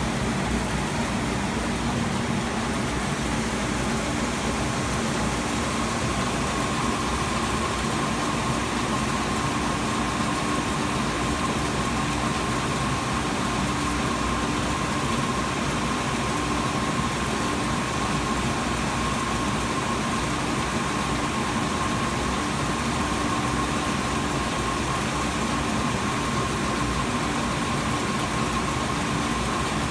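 DMC Technosand 53-inch wide belt sander running steadily, with its sanding heads, vacuum pump and conveyor all on. A steady higher whine joins the hum about six seconds in.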